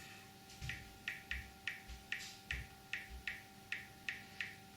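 Typing on a smartphone touchscreen: a fast, irregular run of short, light keyboard clicks, about four a second, with a few soft low thuds of the phone being handled.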